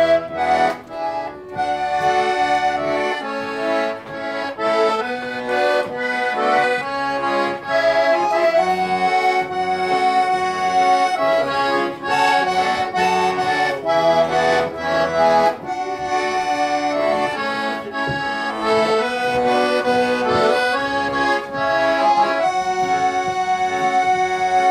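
Button accordion playing a traditional tune, the melody carried over a steady pulse of chords.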